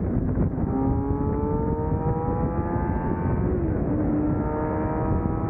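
Kawasaki ZX-10R sport bike's 1000 cc inline-four engine running under way, its pitch climbing slowly. It makes a short dip and step in pitch about three and a half seconds in, then holds fairly steady.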